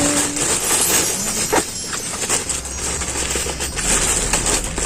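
Plastic mailer package crinkling and rustling as it is handled to be opened, a dense run of small crackles.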